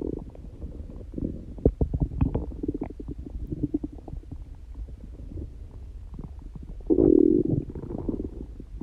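A person's stomach growling: a run of small gurgles and pops, then a louder drawn-out growl about seven seconds in. The owner says it growls like this without being hungry or having a stomachache.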